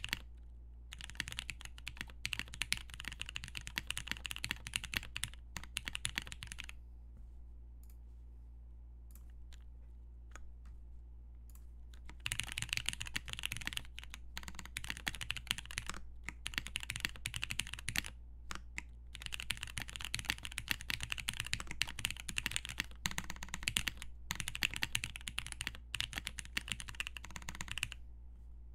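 Typing on a dnworksco Ryujin TKL mechanical keyboard with lubed Cherry MX Brown switches on a polycarbonate plate and original Cherry doubleshot keycaps. Quick runs of keystrokes are broken by a pause of about five seconds in the middle, and the typing stops shortly before the end. A steady low hum lies underneath.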